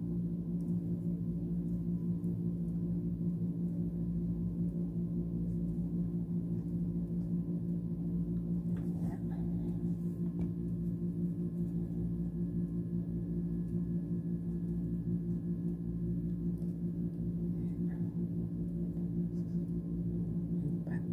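A steady low hum with a few overtones, unchanging throughout, with a few faint light clicks.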